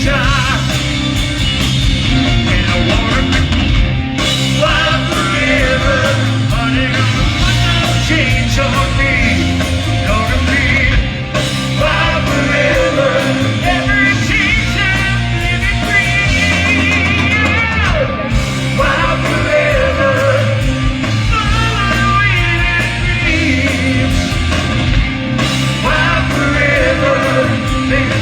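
Live hard rock band playing a song at a soundcheck: a singer over electric guitar, bass and drums, loud and steady.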